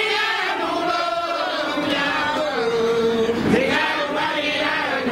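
A group of men chanting a song together over Garifuna hand drums and maracas.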